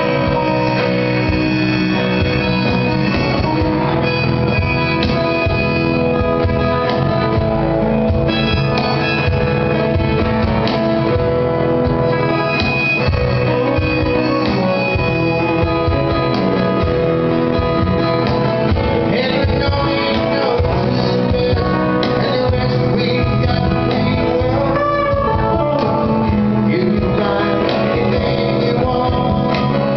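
Live band playing a song: a man singing over strummed acoustic guitar, electric bass and cajon.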